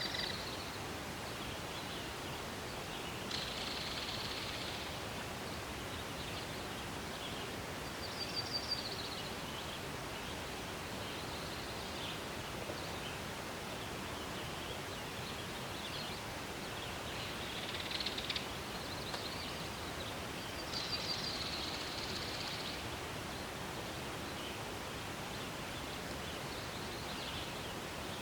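Forest ambience: a steady rustle of gentle wind in the trees, with songbirds calling now and then in short high chirps and trills, about five bouts spread through.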